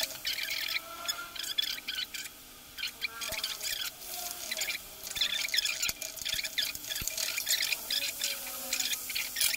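A steel spoon scraping and stirring in a steel kadhai while onion and tomato sizzle in oil, with irregular crackles and faint squeaks of metal on metal; moong dal is stirred into the frying mixture.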